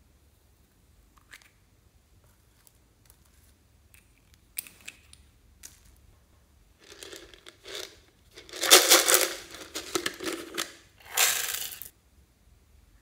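Small plastic beads being shaken out of their packet onto slime: rattling and crinkling in three bursts over about five seconds, the middle one the longest and loudest, after a few soft clicks.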